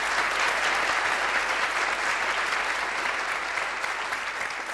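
Applause from a seated group of people clapping their hands, a dense steady patter that eases slightly near the end.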